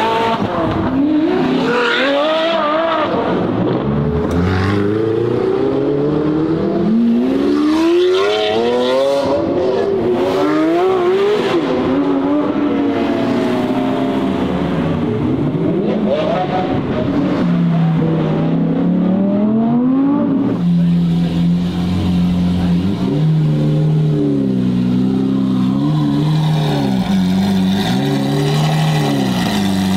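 Sports cars, among them a Ferrari 458 Spider and a Porsche 911 GT3, revving and accelerating away one after another, their engine notes rising and falling through the gears. About two-thirds of the way through, this gives way to a Lamborghini Aventador's V12 running steadily with a carbon Capristo exhaust, with small rises and dips in revs.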